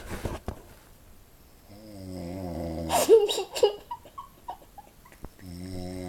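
Snoring: a long rattling snore about two seconds in that breaks into a sharp, loud noisy burst, a few small clicks, then another rattling snore beginning near the end.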